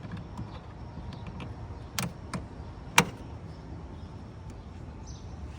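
Three sharp metallic clicks and a few faint ticks of hand tools working the hose clamps on a plastic coolant reservoir, the loudest about three seconds in.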